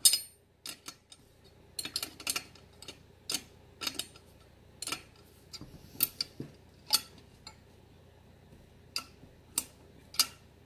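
Steel combination wrench clinking against a nut as it is repeatedly lifted off and refitted, tightening a nut on a freshly installed stud in the engine's motor mount: a string of sharp metal clicks, roughly one or two a second, with a pause of about two seconds near the end.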